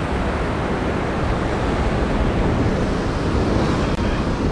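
Ocean surf breaking and washing over a rocky lava shoreline: a steady, unbroken rush of churning water.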